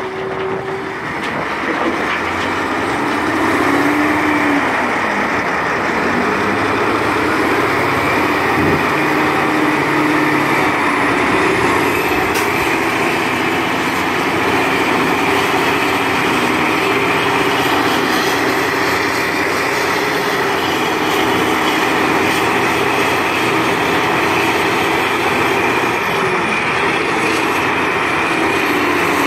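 Heavy diesel engines of a Cat 988F wheel loader and a Cat 775E haul truck running steadily and loudly, the engine note rising and falling a little as the loader works.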